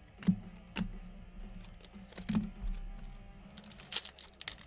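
Trading cards being handled by hand: a few light clicks and taps, then quick crinkly rustles near the end, over faint background music.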